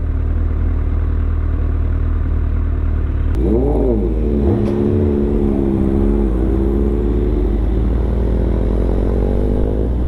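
Sport motorcycle engines running: a steady low rumble, with one engine revving up and back down about three and a half seconds in, then holding a steady drone as the bikes pull away.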